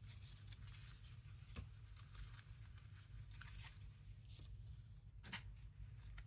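Faint rustling of paper cards being handled and sorted, with a few light taps as cards are set down.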